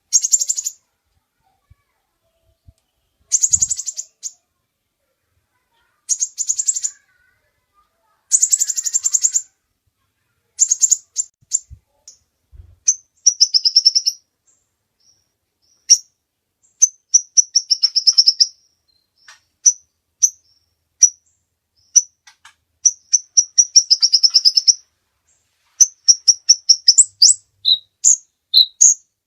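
Brown-throated sunbird (kolibri ninja) singing a loud, high-pitched song. It starts with short, fast chattering trills every two to three seconds, then from about halfway through runs into quick strings of sharp, high notes.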